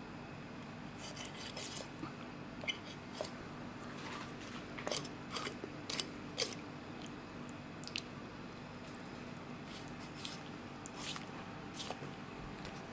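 Knife cutting through raw fish flesh and scraping along the bones as a fillet is peeled away: irregular small clicks and wet squishing over a faint steady low hum.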